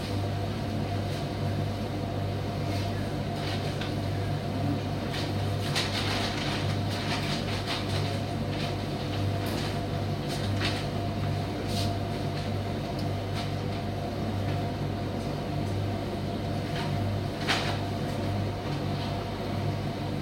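Primus tumble dryer running: a steady low motor-and-fan hum with scattered light clicks, one sharper click near the end.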